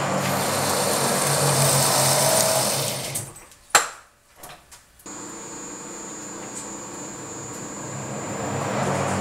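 Pratt & Whitney Model C engine lathe, run off a variable frequency drive, taking a heavy facing cut in steel, then running down to a stop about three seconds in. A sharp click follows, then a moment of quiet with a few ticks. At five seconds the drive starts the motor again with a sudden, steady, high-pitched whine, and the machine builds back up toward speed near the end.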